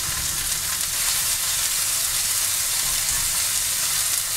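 Sliced mushrooms and vegetables sizzling in a hot frying pan as they brown, a steady even hiss.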